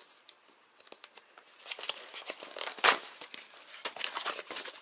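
Hands tearing open a small taped cardboard box: quiet at first, then a run of crackling and ripping from about a second and a half in, with the loudest rip near the middle.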